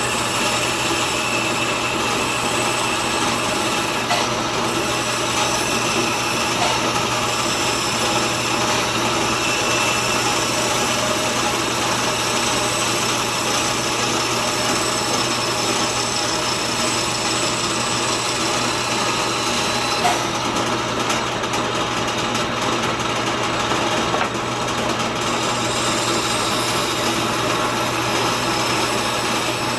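Band saw running steadily, its motor humming, as it cuts walnut boards into letter shapes.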